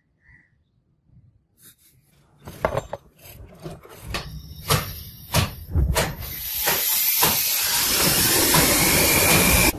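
Several sharp metal knocks as a rusty iron chain link is set into a small ceramic-wool-lined pipe forge. Then, about two-thirds of the way in, the forge fires up, its flame running as a loud, steady hiss.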